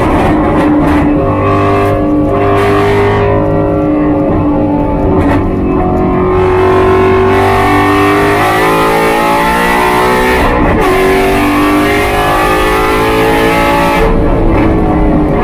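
Race car's engine heard from inside the cockpit at high revs, its pitch falling as it brakes into the corners and rising again under throttle. A gear change comes about ten seconds in, and it pulls to nearly 7,000 rpm by the end.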